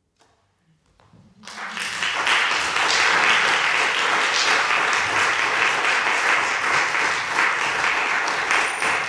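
Audience applauding: the clapping starts about a second and a half in, quickly builds, and then holds as steady, dense applause.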